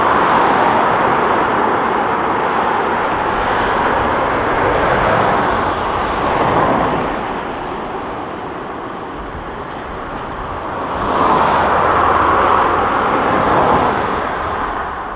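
Road traffic going by, tyre and engine noise swelling as cars pass, loudest at the start and again about eleven seconds in.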